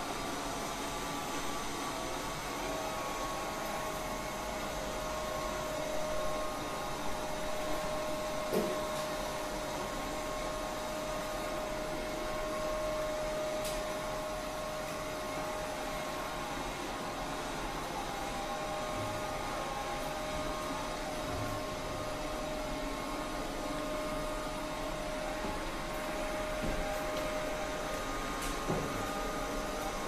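Sharp Crown BL608 robot vacuum cleaner running on a hard tile floor in its automatic spot-clean mode: a steady suction hiss with an even motor whine, and a couple of light clicks.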